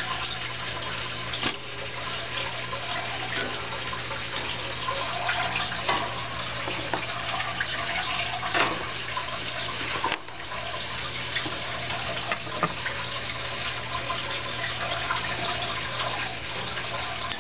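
A steady rushing, water-like noise with a low steady hum beneath it and faint scattered clicks.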